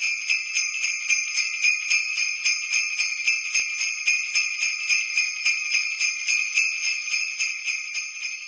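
Jingle bells shaken in an even rhythm, about three to four shakes a second.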